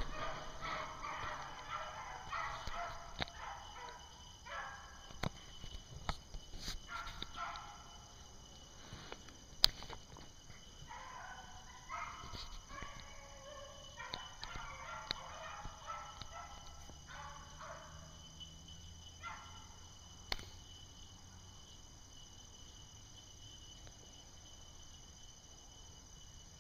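A pack of beagles baying as they run a rabbit's scent trail, several hounds giving voice together in two stretches with a pause between, then going quiet near the end. A couple of sharp clicks stand out, one near the middle.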